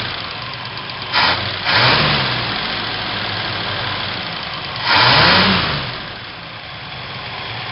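1958 Plymouth 318 polyspherical V8 idling, blipped up briefly about a second in and then revved twice, about two and five seconds in, each rev rising and falling back to idle. It is running evenly, without a misfire.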